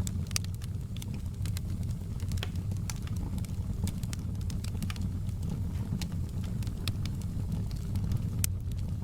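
Wood fire burning in a fireplace: a steady low rumble of the flames with scattered sharp crackles and pops, a few each second.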